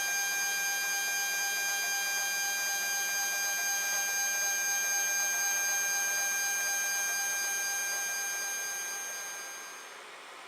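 3D printer's Z-axis stepper motors driving the threaded rods up: a steady whine of several high tones that fades and cuts off near the end.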